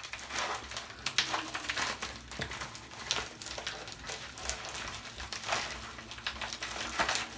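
Packaging crinkling and rustling as hands work at a tightly sealed package, with an irregular run of small ticks and crackles.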